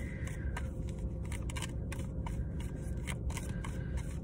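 Steady low hum inside a car's cabin, with faint scattered clicks and rustles.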